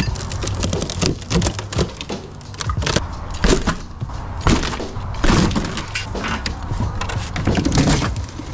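Plywood boards and wooden slats knocking, cracking and scraping as they are pushed aside by hand, a run of irregular sharp knocks with rubbing in between.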